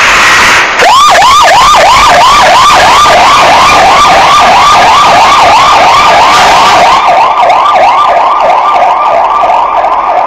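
Fire engine's electronic siren sounding a fast yelp: a rapid rising wail repeated about three times a second, very loud, as the truck leaves on an emergency call. It is preceded in the first second by a loud rushing noise.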